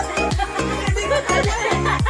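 Background dance music with a steady, fast beat, the kick drum hitting about three times a second.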